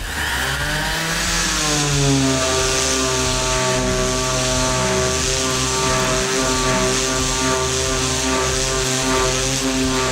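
Bosch GSS 1400/A Professional orbital sander switched on, its motor settling to a steady pitch within about two seconds. It then runs steadily as the sanding pad works along a wooden board.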